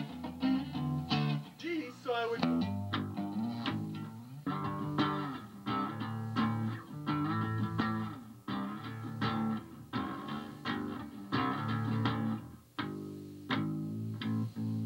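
Rock band playing live: electric bass holding low notes over a drum kit beat, with guitar.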